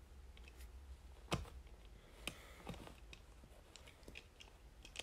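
LEGO bricks clicking as they are handled and pressed onto a small build: a few scattered small clicks, the sharpest about a second and a half in.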